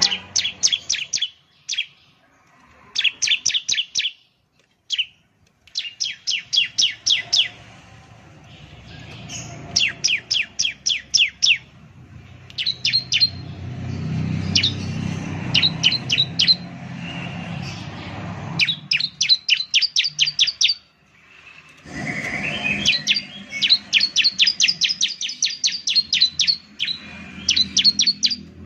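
Bar-winged prinia (ciblek) singing: repeated bursts of rapid, high, sharp notes, each burst about a second long, with short pauses between them. A low background rumble rises and falls underneath.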